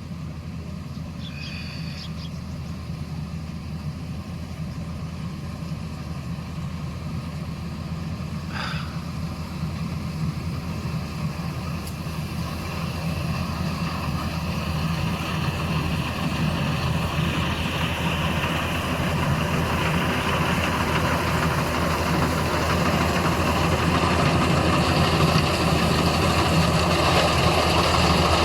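Diesel engine of a small rice combine harvester running steadily, growing louder through the stretch as the machine comes closer. The hiss of the working machine swells in the second half.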